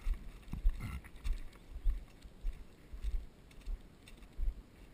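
Bicycle jolting over railroad ties, a string of uneven thumps and rattles, about two a second.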